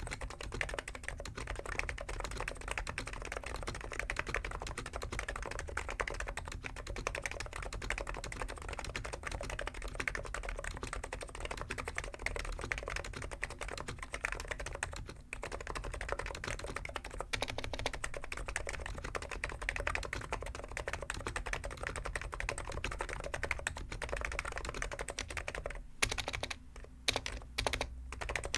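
Steady, fast typing on a Hansung GK893B keyboard with stock, unlubricated 50g electro-capacitive switches: a continuous patter of key strokes. It pauses very briefly about halfway through, and near the end it breaks into a few separate, louder strokes with short gaps between them.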